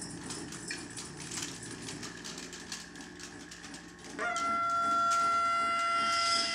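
Free improvised music: scattered clicks, taps and small rattles from hand percussion, then about four seconds in a loud, high held note from a reed instrument enters with a quick upward slide and stays steady.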